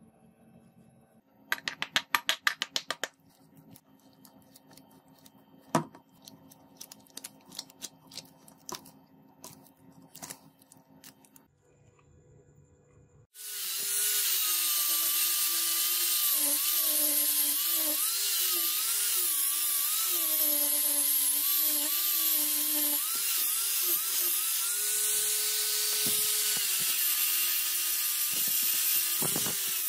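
Scattered handling clicks and knocks, then about halfway through a power tool's abrasive sanding disc starts up. It runs steadily while shaping a wooden sword handle, its motor pitch dipping and recovering as the wood is pressed against it.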